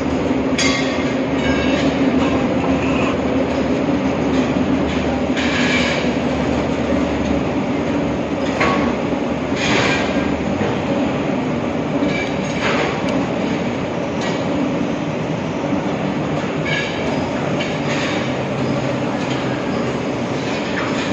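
Steady mechanical rumble with a low hum throughout, and every few seconds a sharp click or tap of metal valve parts being handled.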